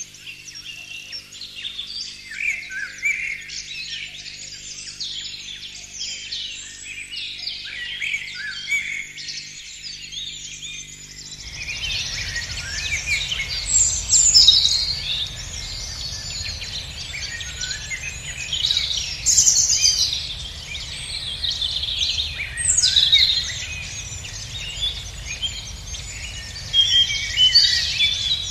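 Chorus of many small songbirds singing and chirping together in quick, overlapping phrases. A low rumble joins about a third of the way in and stays under the song.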